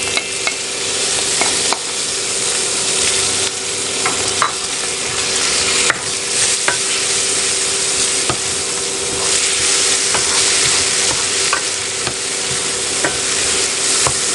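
Chopped tomatoes, onions and sardines sizzling in oil in a hot nonstick frying pan while a wooden spatula stirs them, scraping and tapping against the pan with scattered clicks. A steady hum runs underneath.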